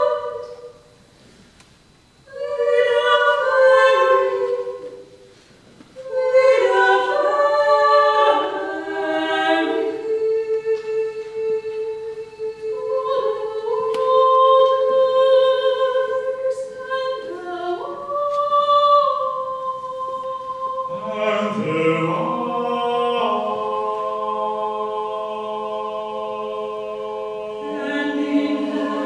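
Six-voice vocal ensemble of women's voices and a bass-baritone singing a contemporary choral piece. Short phrases are broken by brief pauses, then the voices hold overlapping sustained notes that stack into chords. A lower voice joins about two-thirds of the way through.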